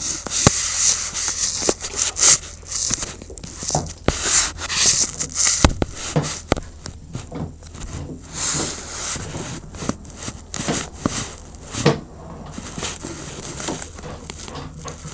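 Irregular rustling, crackling and rubbing, handling noise close to the microphone, with scattered sharp clicks and knocks; it settles down toward the end.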